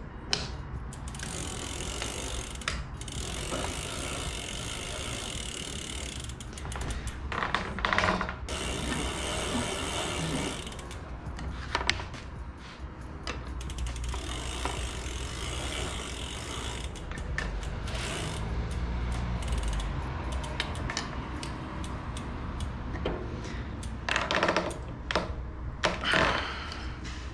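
Ratcheting clicks and metal handling sounds while pedals are threaded onto a mountain bike's cranks, with a few louder knocks along the way.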